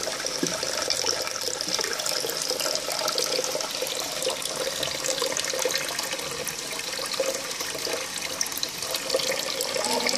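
Water running and splashing into a shallow tub of koi, a steady rushing and bubbling, as the fish are acclimated to new water.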